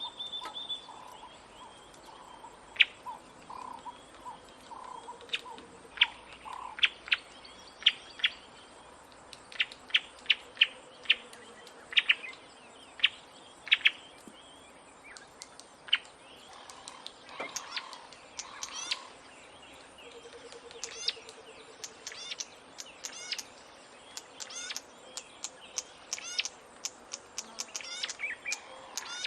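Several birds chirping and calling: many short, sharp chirps, often in quick runs, with a lower call repeating through the first several seconds and a faint low trill underneath.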